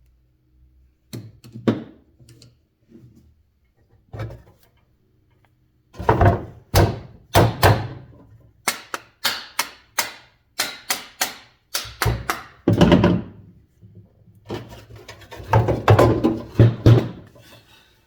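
A series of sharp knocks and clunks from metal box fan motor parts being handled and fitted together. A few come early, then a dense run of about twenty follows.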